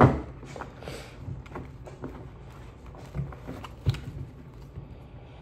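Tarot cards being shuffled by hand: soft flicks and rustles of the cards, with a sharper knock at the very start and two louder clicks about three and four seconds in.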